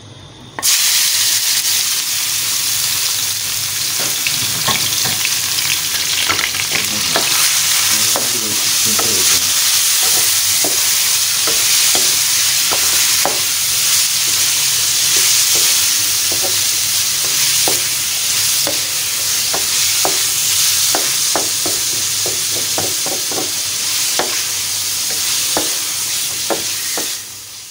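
Marinated mutton liver, kidney and heart pieces dropping into hot cooking oil and frying: a loud, steady sizzle that starts suddenly about half a second in. From about four seconds on, frequent clicks and scrapes of a wooden spatula stirring the meat against the pan.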